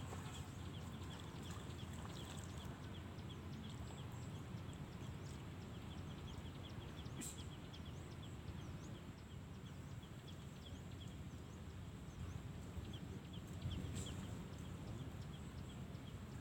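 Outdoor background sound: a steady low rumble with many faint, short, high chirps scattered through it, and two brief sharp clicks, about seven and fourteen seconds in.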